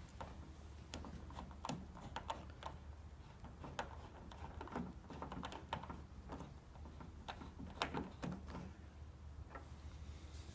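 Faint, irregular light clicks and taps of plastic and metal as the end cap is worked loose and pulled off a Nissan Murano Z51's exterior door handle.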